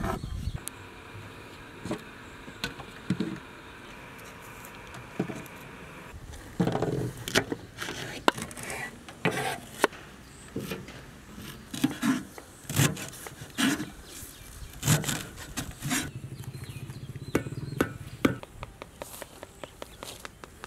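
Kitchen knife cutting and chopping vegetables and herbs on a wooden chopping board: irregular sharp knocks, thicker in the second part. A steady buzz runs under the first few seconds and stops about six seconds in.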